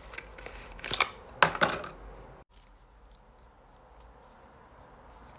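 Cardboard product carton being handled and opened, with sharp scraping rustles about a second in and again half a second later. After that it drops to a faint hiss with a few small ticks as the bottle is handled.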